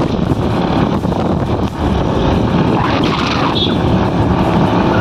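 Wind buffeting the microphone over the steady running of a moving scooter's small engine and tyre noise.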